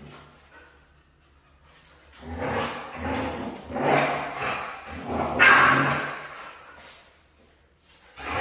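Dogs barking in play as a Siberian husky wrestles with a small white puppy: a run of barks begins about two seconds in, is loudest a little past halfway, and dies away near the end.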